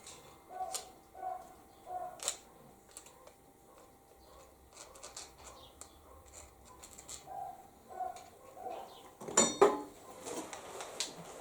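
Scattered light metallic clicks and knocks of tools and parts being handled on a cast-iron machine bed, with a few louder knocks about nine seconds in.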